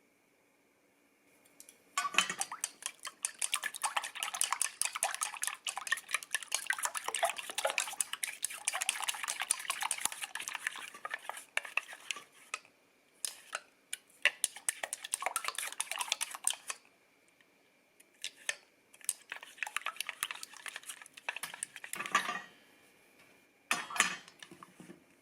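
A utensil clicking rapidly against a bowl while stirring, a continuous run of about fifteen seconds followed by several short spurts.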